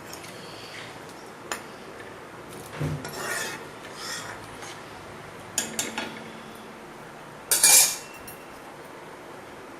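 A metal spoon scraping and clinking against a cooking pot in a handful of short bouts. The loudest comes about three-quarters of the way through.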